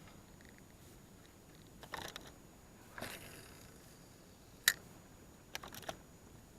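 Faint handling noises of fishing gear in a small boat: a few scattered clicks and knocks, the sharpest and loudest a little past halfway, followed by a quick cluster of clicks near the end.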